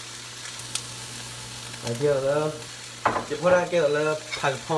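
Food sizzling steadily in a hot frying pan, over a low steady hum. A man's voice talks briefly about two seconds in and again from about three seconds in.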